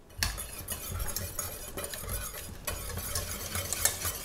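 Wire whisk stirring a piece of butter into a hot red wine reduction in a small stainless steel saucepan: a continuous quick scraping and swishing of metal wires against the pan, the butter being whisked in to finish the sauce.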